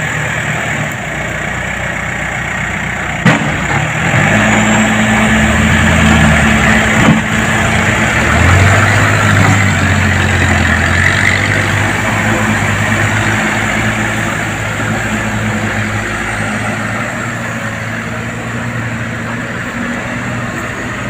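Diesel engine of a Case backhoe loader running under heavy load as its front bucket pushes a loaded palm-fruit truck out of deep mud. It gets louder from about four seconds in to about eleven, and sharp knocks come about three seconds in and again near seven. In the second half it settles into a steadier, quieter run.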